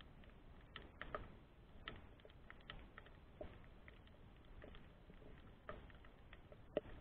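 Underwater ambience picked up by a submerged camera: a faint hiss with scattered sharp clicks and crackles at irregular intervals, several a second, the loudest one near the end.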